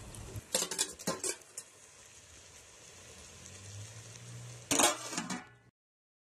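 Clinks and scrapes of metal on a large aluminium cooking pot, with a faint sizzle of the simmering chicken masala. A louder clatter of the pot's metal lid comes near the end, then the sound cuts off abruptly.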